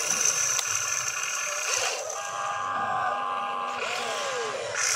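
Radio-controlled hydraulic excavator working: the electric whine of its motors and hydraulic pump. A steadier, held tone sounds from about two seconds in while the upper body swings round, with light clatter of dirt dropped from the bucket at the start.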